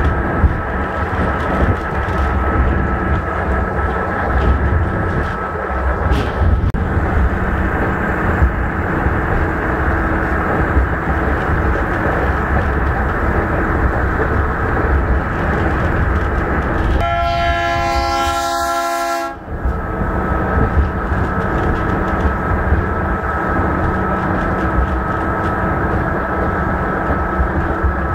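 Mount Washington Cog Railway train running down the mountain, heard from inside the passenger car: a steady rumble and rattle. A little past halfway a horn sounds once for about two seconds and cuts off sharply.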